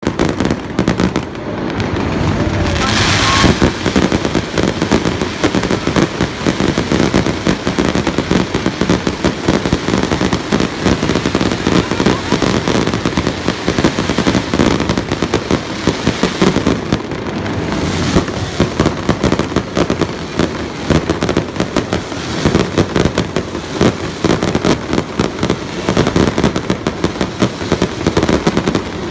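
Fireworks and firecrackers going off continuously, a rapid, unbroken crackle of many bangs that swells and thins at times.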